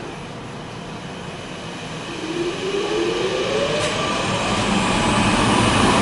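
DeWalt 735 benchtop planer's motor starting up about two seconds in, its whine rising in pitch and growing louder as it spins up, over a steady hum that was already running.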